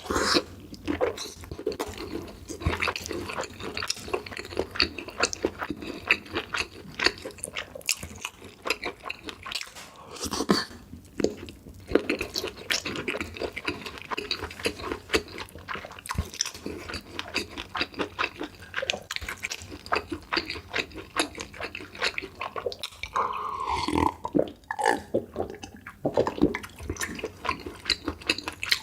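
Close-miked eating: wet chewing with many quick mouth clicks and smacks, going on without a break.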